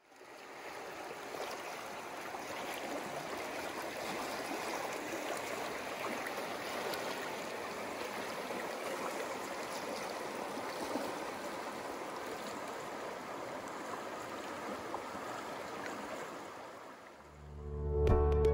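Shallow, clear creek running steadily over rocks, fading in at the start and fading out near the end, when music with sustained tones comes in and becomes the loudest sound.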